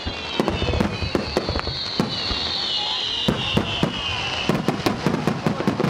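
Fireworks aerial shells bursting in a dense barrage, with many bangs in quick, irregular succession. A high whistle falls slowly through the first four seconds or so and then fades out.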